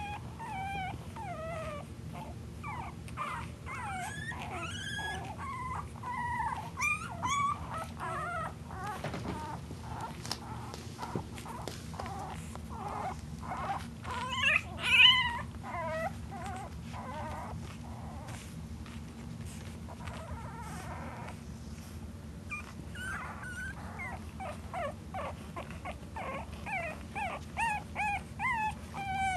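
Very young Boston terrier puppies whimpering and squeaking in short, high, wavering cries. The cries come in clusters: several in the first few seconds, the loudest run about halfway through, and quick repeated whines near the end.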